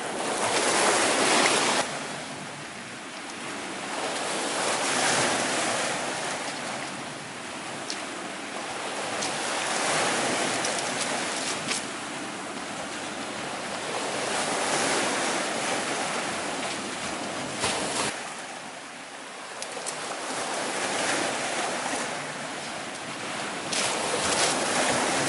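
Small sea waves breaking and washing over a rocky, pebbly shore, the surf swelling and falling back every four to five seconds. A few short clicks sound over it.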